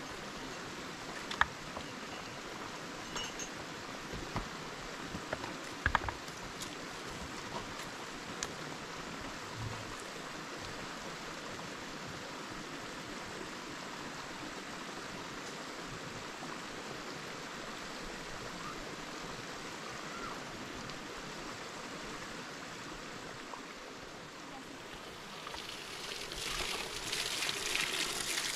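Flowing water running steadily, with a few sharp clicks in the first several seconds; it grows louder and splashier near the end.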